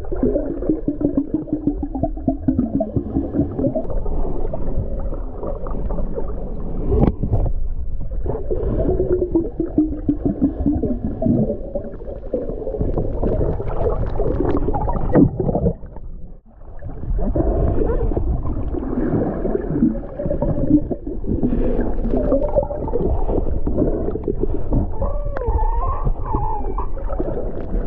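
Muffled underwater sound from a submerged camera: gurgling and sloshing water with wavering low hums, dull and with no highs. It drops out briefly a little past halfway.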